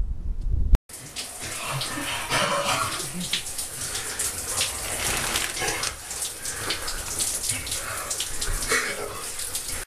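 Shower running: an even hiss of water spray in a shower stall. Before it, a low rumble of wind on the microphone cuts off abruptly about a second in.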